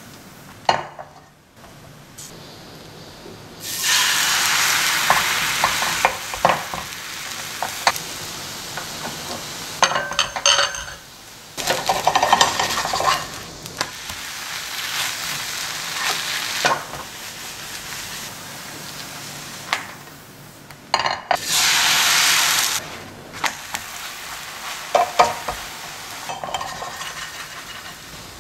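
Crepe batter sizzling in a hot nonstick frying pan, with loud spells of hissing about four seconds in and again about twenty-one seconds in. Light clinks and knocks of the pan and utensils come in between.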